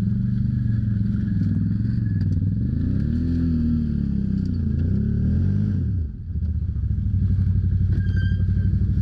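ATV engine revving as the quad drives through mud and over a log, the revs rising and falling a few seconds in, then holding steady. The machine is straining while hung up on a branch wedged at its front wheel.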